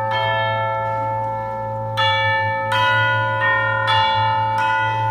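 Live orchestral music with electronics: bell-like struck notes, each ringing on as the next enters about every second or so, over a steady low drone.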